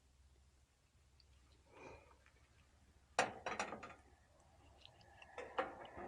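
A few sharp clicks and knocks of small objects being handled: a quick cluster of three or four about three seconds in, and two more near the end.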